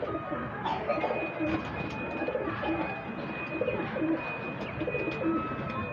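Domestic pigeons cooing, a run of repeated low coos.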